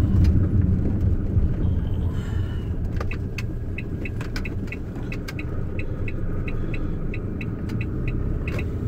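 Inside a loaded delivery van's cab while driving: a steady low engine and road rumble. From about four seconds in, the turn-signal indicator ticks at an even beat of several ticks a second.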